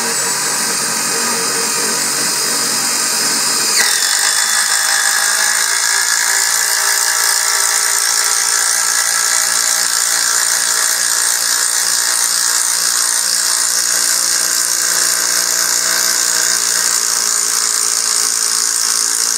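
DeWalt 20 V cordless impact driver driving a long lag bolt into stacked 2x4s, its impact mechanism hammering the bolt in steadily. About four seconds in, the sound steps up in pitch and gets brighter.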